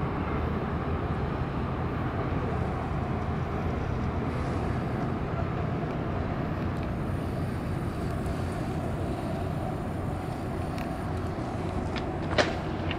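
Steady low rumble of a yakatabune houseboat's engine as it passes on the river, with a single sharp click near the end.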